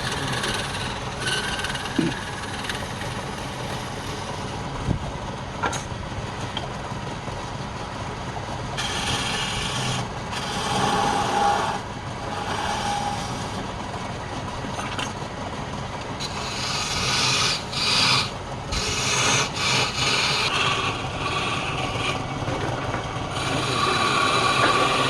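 Wood lathe running with a tool working against the spinning wood in several bouts of harsh noise over a steady machine hum.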